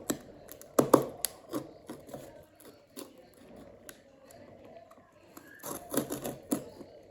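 Typewriter-style keys of a retro mechanical-key calculator being pressed: irregular clacks, with quicker runs of presses about a second in and again around six seconds.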